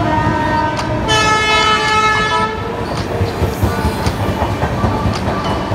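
Train horn sounding once for about a second and a half, several tones together, over the continuous rumble of a running train.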